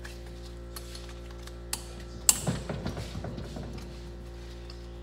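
Hand ratchet wrench working the 8 mm cylinder-head bolts on a Honda TRX300 engine: a sharp click a little over two seconds in, then a quick run of ratchet clicks lasting about a second and a half.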